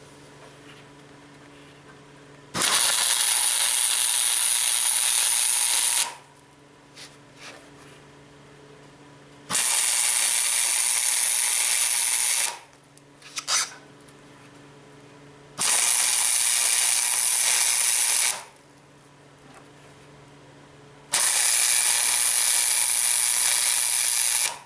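Arc welding on steel, tack-welding heat-exchanger pipes into a steel end plate: four bursts of steady crackling hiss, each about three seconds long. A steady low hum fills the pauses between them.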